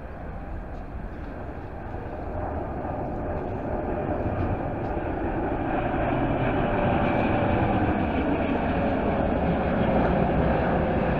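Boeing 777 freighter on approach to land, its twin jet engines growing steadily louder as it comes nearer. From about halfway through, a whine sits above the engine noise and slowly falls in pitch.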